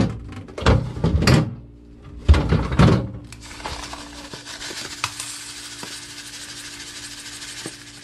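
A plastic freezer drawer knocking and thudding several times as it is tugged but will not slide out. Then dry white granules are poured from a bag into a stainless-steel bowl, a steady hiss with a few small ticks.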